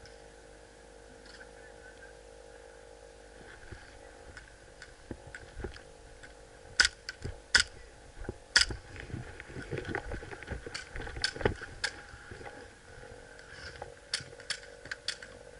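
Airsoft pistol fired in short bursts: three loud sharp cracks about a second apart, with clattering movement noise between and after them, then four quicker sharp cracks near the end.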